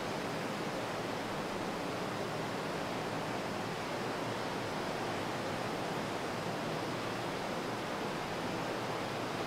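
Steady, even hiss with no other sound in it, unchanging throughout.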